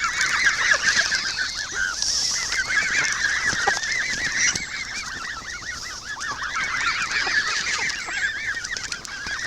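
A flock of geese calling all at once, a continuous jumble of many short overlapping honks, as they crowd in for food.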